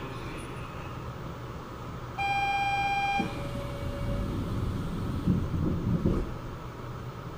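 Electronic two-tone chime inside a Port Liner automated train car: a higher tone for about a second, then a lower one. A low rumble with a few louder peaks follows over the car's steady hum.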